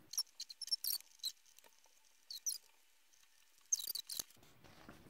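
Pencil scratching on paper in quick short squiggly strokes, in three spells: about a second in, mid-way, and around four seconds in.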